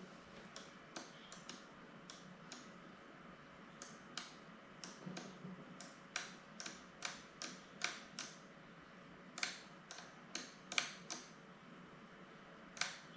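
Small plastic switches and buttons being clicked on FPV gear: about twenty sharp clicks at uneven spacing, some in quick pairs.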